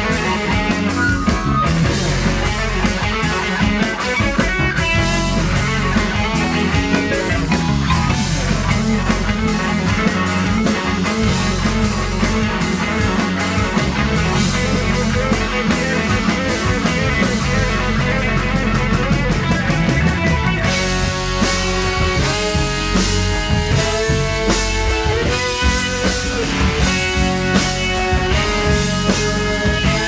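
Live funk band playing, an electric guitar soloing over bass and drum kit. About twenty seconds in the cymbals drop back and long held notes come forward.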